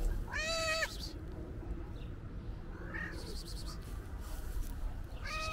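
Calico cat meowing: one meow about half a second in and another starting right at the end, each rising then falling in pitch, with a faint short call about three seconds in.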